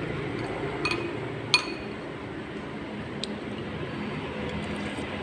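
A metal spoon clinking against a ceramic soup bowl three times, the sharpest clink about a second and a half in, over steady background noise.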